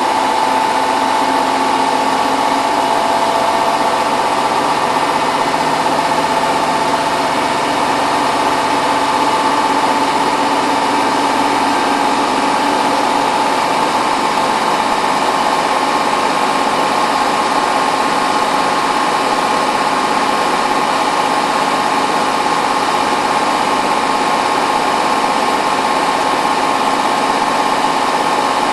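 Hotpoint WT960 washing machine on its final fast spin, the drum turning at high speed with a steady motor whine over a continuous rushing noise.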